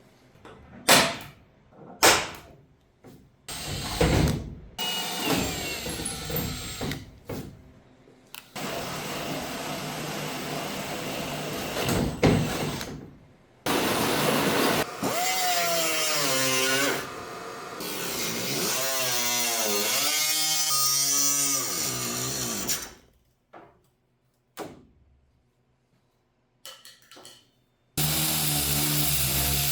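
A power drill driving a hole saw into a fiberglass hood, in several bursts of a few seconds each. Its whine sags and climbs as the saw bites and frees up. A few sharp knocks come in the first seconds, and a short quiet stretch with a few clicks comes near the end.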